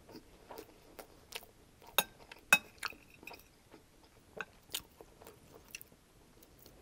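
Close-up chewing of crispy chicken fried rice: soft, wet mouth clicks. About two seconds in, a metal spoon clinks twice against the glass bowl, the second clink ringing briefly as another spoonful is scooped.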